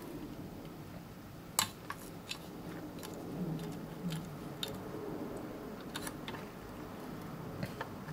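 Faint scattered clicks and small knocks from equipment being handled by hand, over a low steady hum; the sharpest click comes about one and a half seconds in.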